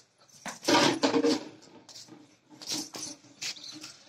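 A black Labrador playing with a ring toy on concrete: a loud scuffling, clattering burst about a second in, then a few sharp clicks.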